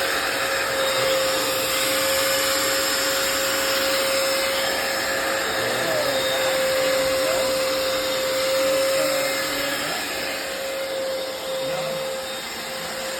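Hoover FloorMate hard floor cleaner running in dry mode, its suction motor giving a steady whine over a rushing hiss as it picks up dirty water from the floor.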